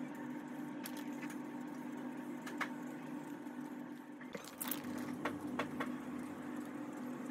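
Faint steady hiss of paint spraying over a low steady hum, with a few light clicks and taps scattered through.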